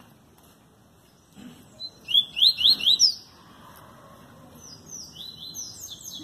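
Double-collared seedeater (coleiro) singing: a quick run of about half a dozen loud, rising whistled notes about two seconds in, then fainter song again near the end.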